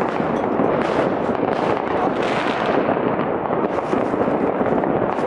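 Many fireworks going off at once across a city: firecrackers, rockets and batteries blend into a dense, unbroken wash of overlapping bangs and crackles with no single blast standing out.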